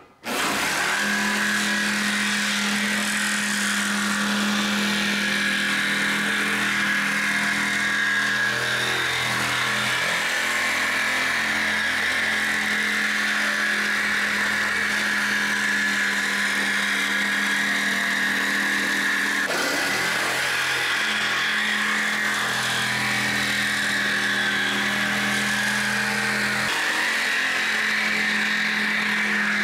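Electric jigsaw running steadily, its blade cutting through the fiberglass lip of a car body.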